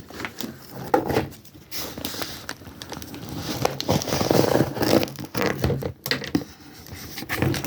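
Packaging from a mailed parcel being torn open and handled: irregular tearing, crinkling and scraping with small clicks.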